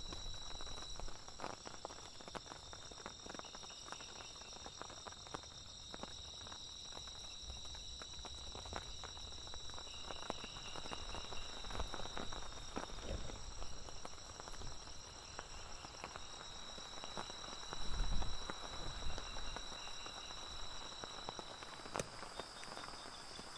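Night-time forest insects, crickets among them, trilling steadily in a high, continuous chorus, with scattered faint ticks underneath. A dull low bump comes about three quarters of the way through.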